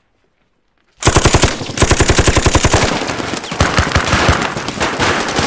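Near silence, then about a second in a sudden burst of rapid automatic gunfire that is quickly joined by more weapons into a continuous, heavy exchange of fire.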